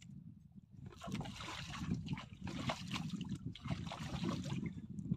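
Water splashing and sloshing against a small fishing boat, starting about a second in.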